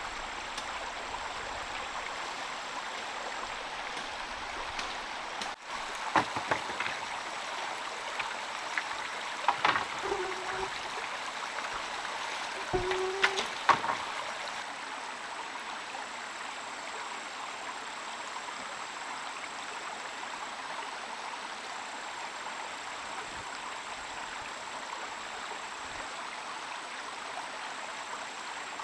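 Steady rain falling, a continuous even hiss. Between about six and fourteen seconds in, a few short knocks and clicks and two brief squeaks break in, as if something is being handled close by.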